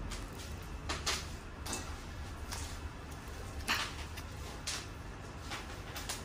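Hands handling a new iron's plastic three-pin plug and power cord with its tag: a string of short, scattered rustles and light clicks, the loudest a little under four seconds in, over a low steady hum.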